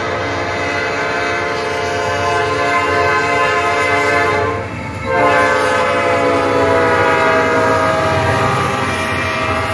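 Norfolk Southern freight locomotive's multi-chime air horn blowing as the train approaches and passes: one long blast that breaks off about four and a half seconds in, then a second, louder blast. Under it the diesel locomotives rumble, growing louder near the end as they go by.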